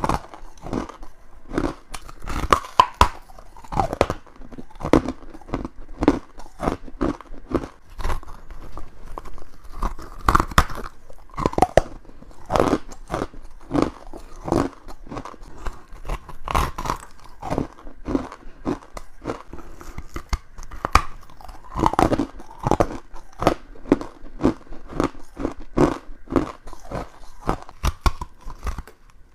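Close-miked crunching and chewing of frozen frost chunks and ice cubes: rapid, repeated crisp bites and crunches, several a second, with no pause.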